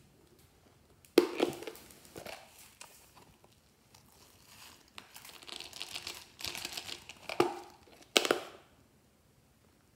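Crinkly snack-package wrapping being handled and crumpled: a sharp crackle about a second in, a run of fainter crinkling through the middle, and two more sharp crackles near the end.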